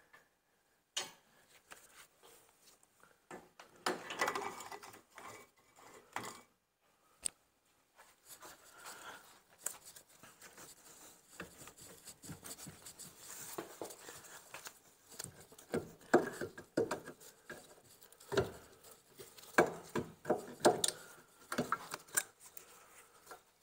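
Scattered metallic clicks, knocks and rattles of a Ford Transit's rear brake caliper and pads being worked off the disc by hand, with a scraping rub early on and a run of sharper knocks near the end.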